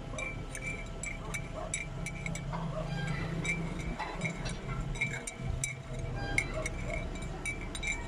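Excavator's diesel engine running in the distance as a steady low hum that drops away briefly in the middle, under frequent short, high-pitched clinks at irregular spacing, two or three a second.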